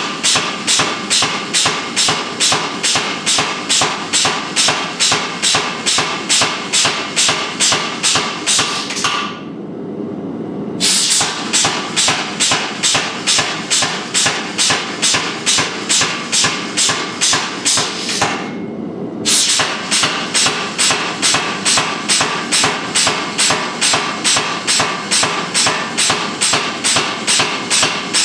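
Hammer blows forging steel on an anvil, an even, ringing rhythm of about three strikes a second. It pauses briefly twice.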